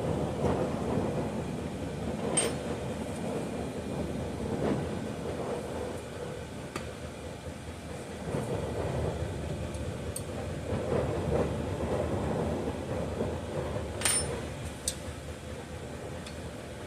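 Low rumbling noise that swells and eases, with a few sharp metal clicks: hands and tools working on a chainsaw's ignition coil and flywheel while its air gap is being set.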